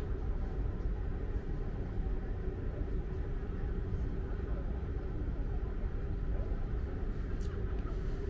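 A steady low rumble, with faint voices in the background.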